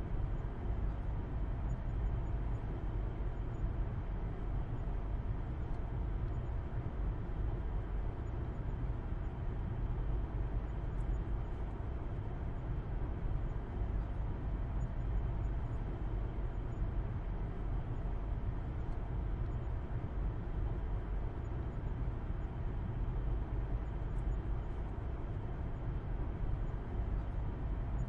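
Car driving at steady speed, heard from inside the cabin: a constant low hum of engine and road noise with no changes.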